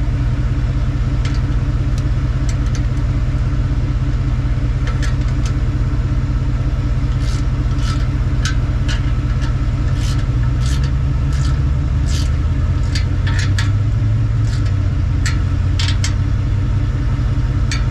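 A car engine idles steadily, its exhaust coming through a pipe freshly joined with a slip-on pipe connector, where some exhaust gas is still escaping. Sharp ticks come irregularly over the hum, and the engine note rises a little about two-thirds of the way through.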